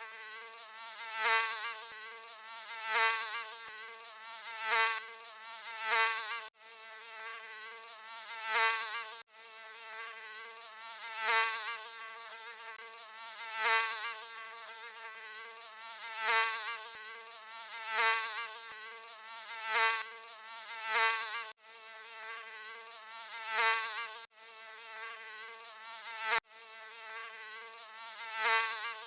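Mosquito buzzing: a continuous high whine that swells louder and fades back about every one and a half to two seconds, as if flying close past the ear again and again, with a few very brief drop-outs.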